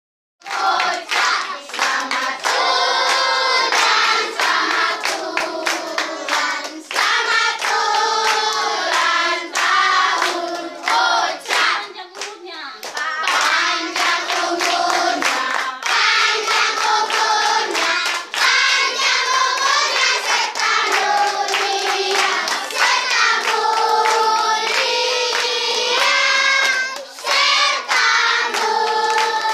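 A group of people singing together and clapping their hands along with the song, with a short lull about twelve seconds in.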